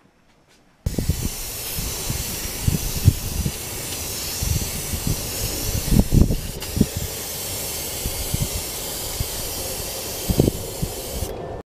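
Iwata airbrush spraying paint: a steady hiss of compressed air that starts abruptly about a second in and cuts off near the end, with scattered low thumps underneath.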